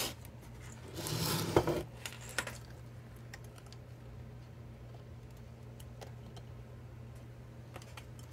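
Handling noise from an opened car stereo's metal chassis and wiring: a brief rustling scrape with a sharp click about a second in, then a few faint ticks and small metallic clicks, over a steady low hum.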